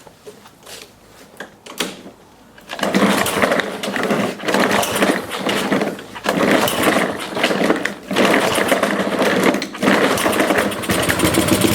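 Mountfield mower's SV150 petrol engine catching after a pull-start about three seconds in, then running unevenly, dipping and picking up again about every two seconds. This is typical of fuel starvation from a carburettor that needs cleaning.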